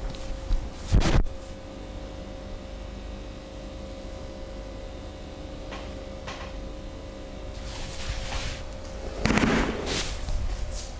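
Massage hand sounds: a sharp double slap or impact about a second in, then softer rubbing and brushing strokes, and a louder burst of rubbing around nine seconds in, over a faint steady hum.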